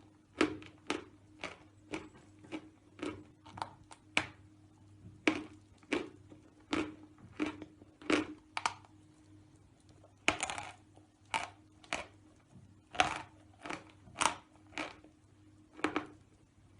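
Dry, powdery 'Shedevr' natural chalk being bitten and chewed close to the microphone: short sharp crunches, about two a second, with a longer crunch about ten seconds in. A faint steady hum runs underneath.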